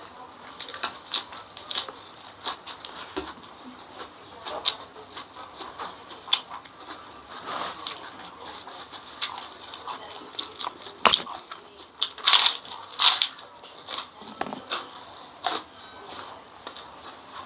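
Close-miked eating sounds: a person biting and chewing a crisp lettuce leaf and mouthfuls of food, with crunches, wet mouth clicks and smacks. A few louder crunches come about eleven to thirteen seconds in.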